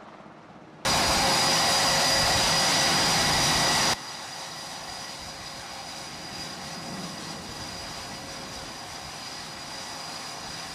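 Jet engines running on a carrier flight deck. A loud, steady roar with a high whine starts suddenly about a second in and cuts off about three seconds later, then a quieter steady jet whine continues.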